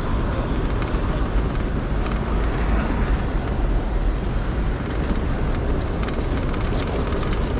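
Steady noise of a car driving through city traffic, mostly a deep, even rumble of engine and road.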